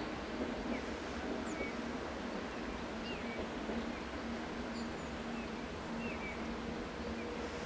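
Small birds chirping now and then over a steady low rumble with a faint hum.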